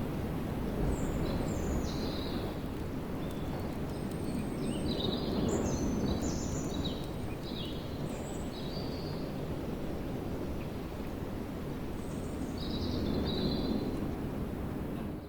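Small birds chirping in short, scattered calls over a steady low background rumble of outdoor noise.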